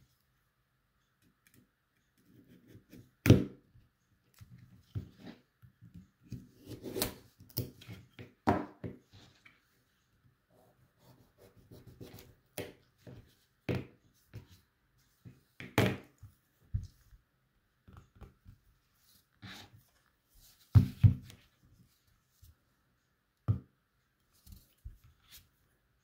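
Kitchen knives cutting carrot on a plastic cutting board: irregular cutting strokes and knocks of the blade on the board, a few of them sharp and loud.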